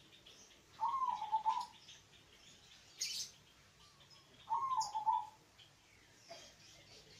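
Zebra dove (perkutut) cooing, two short rolling phrases of about a second each, one near the start and one past the middle. Faint high chirping runs underneath, and there is a brief sharp high sound about three seconds in.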